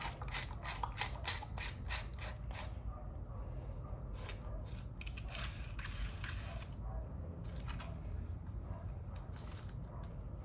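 Gripzilla Tornado grip trainer being handled and turned, its mechanism giving an even, ratchet-like clicking of about six clicks a second for the first two and a half seconds, then scattered clicks and rattles.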